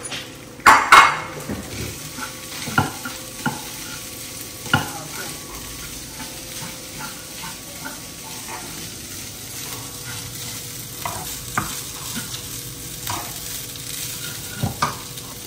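Wooden spatula stirring and scraping cooked rice through frying chilli masala in a non-stick kadai, with a light sizzle under scattered clicks and scrapes; one louder clatter about a second in.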